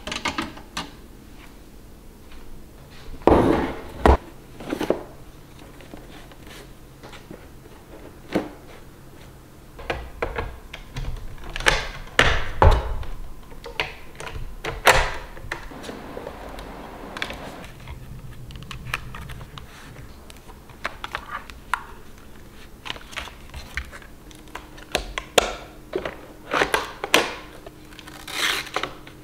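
Irregular knocks, clicks and rubbing of plastic robot-vacuum parts being handled, set down and fitted back onto the upturned robot, with a quicker run of clicks near the end. A faint steady hum sits underneath.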